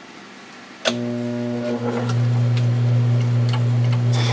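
1937 South Bend lathe's electric motor switched on with a sharp click about a second in, then running with a steady hum and a few faint ticks.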